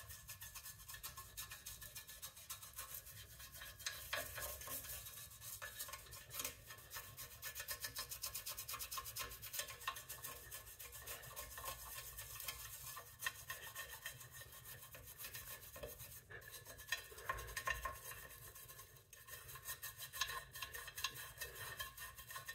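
A brush scrubbing wet decarbonizer around the inside of an exhaust tip: faint, irregular rubbing and scratching strokes as the product is worked into the carbon deposits.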